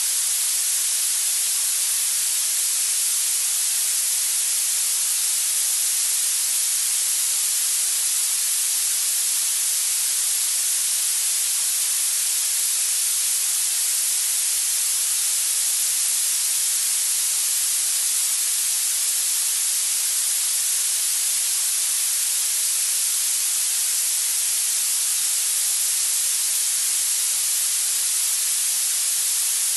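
Steady, unchanging hiss of treble-heavy noise, a continuous masking noise used for tinnitus retraining therapy.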